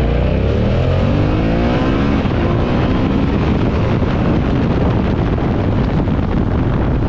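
Yamaha Ténéré 700's 689 cc parallel-twin engine accelerating hard through an open exhaust with the dB killer removed, its note climbing through the gears over the first two or three seconds. After that, wind rushing over the microphone takes over as speed builds.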